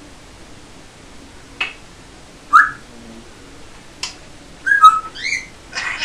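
African grey parrot whistling: a few short, sharp separate notes, then a quick run of rising whistled notes near the end.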